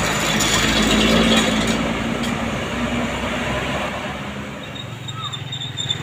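A large coach bus passing close by: engine hum and road noise swell to their loudest about a second in, then fade away over the next few seconds.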